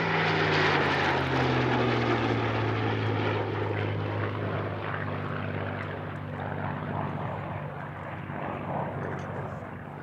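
Aircraft engines passing overhead in formation: the Eurofighter Typhoon's Eurojet turbofans and the Spitfire's Rolls-Royce Merlin piston engine with its propeller. The engine note falls in pitch over the first few seconds, then settles into a steady drone that slowly fades.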